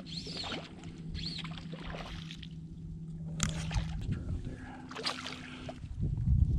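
A boat motor hums steadily and steps up to a higher pitch about four seconds in. Two high arched bird chirps come in the first second and a half, and a low rumble, wind or water on the hull, swells near the end.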